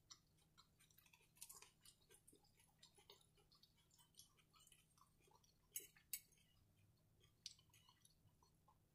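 Faint chewing and small mouth clicks, with a few sharper clicks about halfway through and again near the end from a metal fork cutting fried catfish on a plate.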